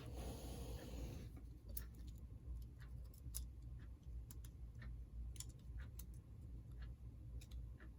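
Faint, irregular light clicks and taps of small model-locomotive parts being handled, over a low steady hum.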